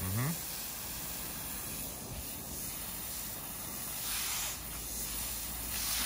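Steady hiss of a hose spraying water across freshly poured concrete, washing the surface paste off to expose the aggregate stones. The hiss swells briefly about four seconds in.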